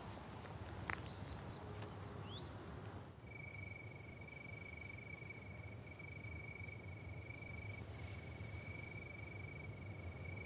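Faint night-time countryside ambience with a cricket trilling steadily at one high pitch. The trill begins about three seconds in and breaks off briefly near eight seconds. Before it there is faint evening air with a single click and a short rising chirp.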